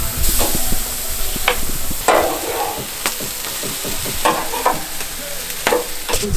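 Chicken pieces sizzling on a grill grate over embers, with metal tongs clinking against the grate and meat about seven times as the pieces are turned.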